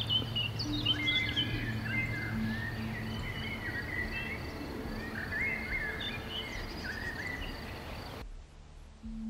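Several songbirds chirping and warbling in quick, overlapping phrases over a steady background hiss, which stops abruptly about eight seconds in.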